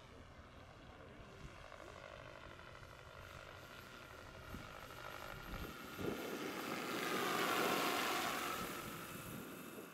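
Large electric scale model Hughes 500 helicopter in flight, its rotor and electric motor giving a steady whine. It grows louder as the helicopter passes close, loudest about eight seconds in, then fades.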